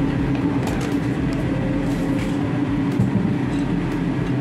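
A steady low mechanical hum with a constant drone, like a motor or fan running, with a few faint clicks over it.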